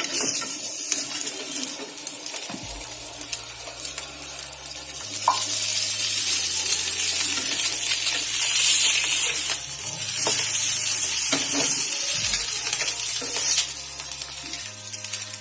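Egg and bread frying in oil on a hot tawa, sizzling steadily and growing louder about five seconds in, with a few sharp clicks of a utensil against the pan.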